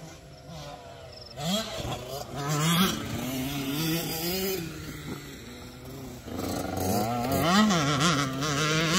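Dirt bike engine revving as it is ridden hard, its pitch climbing and dropping again and again with throttle and gear changes. It is loudest in two spells, from about a second and a half in and again from about six seconds in.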